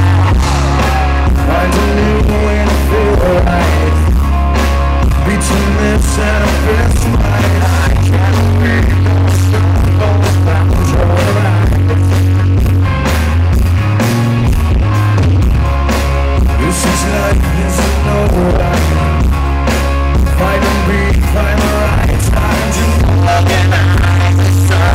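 Live rock band playing a song, a man singing lead into the microphone over guitar and band. The fan recording is loud and distorted.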